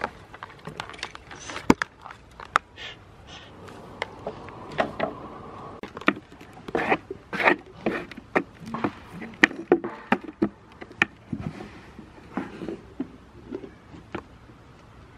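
Goats nibbling and chewing right at the camera: an irregular run of clicks, crunches and knocks, busiest in the middle.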